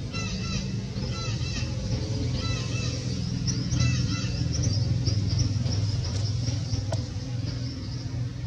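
A steady low rumble with clusters of short, high, arching chirps over it. The chirps are thickest in the first four seconds.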